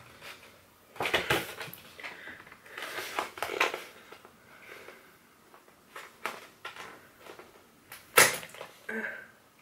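Paper and thin card rustling and crinkling in short bursts as a folded booklet is opened and a gift card handled, with one sharp click near the end, the loudest sound.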